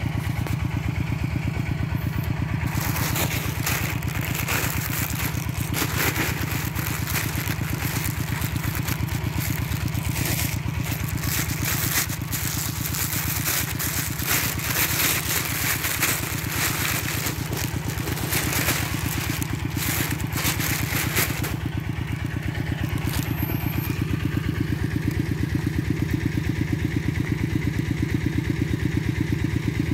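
A small engine running steadily at one speed. From about three seconds in until about two-thirds of the way through, a crackling, scraping noise lies over it.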